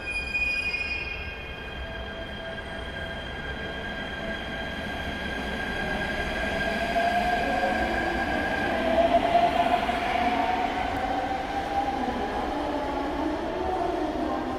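Series E127 electric multiple unit pulling out of the platform and accelerating past, its traction motor whine rising in pitch over the rolling of the wheels. A brief high-pitched tone sounds right at the start.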